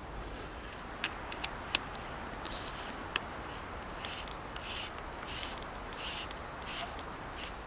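Hands working a Canon 5D Mark II DSLR and its lens on a tripod. A few sharp clicks come between about one and three seconds in. Then there is a run of short rubbing strokes, about three every two seconds, as fingers turn at the front of the lens.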